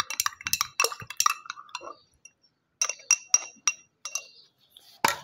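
A spoon stirring homemade lemon-and-honey syrup, clinking repeatedly against the side of its container with short ringing tones; the clinking pauses about two seconds in, resumes, and ends with one sharper knock near the end.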